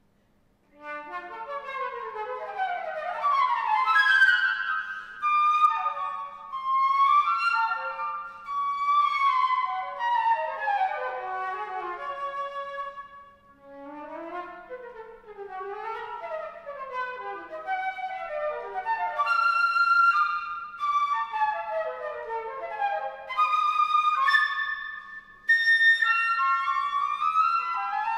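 Concert flute played unaccompanied: fast, sweeping runs up and down over a wide range, with brief breaths between phrases, starting about a second in.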